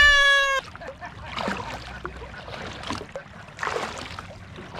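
Kayak paddle strokes dipping and swishing through the water, about one stroke a second, opening with a brief high-pitched call.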